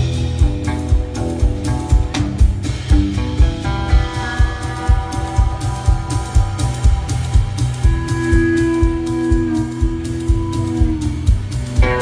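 Live rock band playing: electric guitar lines over a steady drum-kit beat, with long held guitar notes in the middle stretch.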